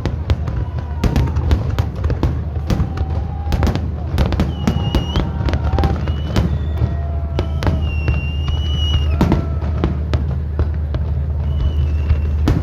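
Fireworks display: a rapid, dense run of bangs and crackles from bursting shells, over a steady low rumble.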